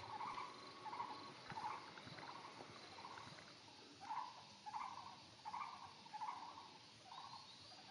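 A series of short animal calls repeating roughly once a second, over a faint steady high-pitched tone.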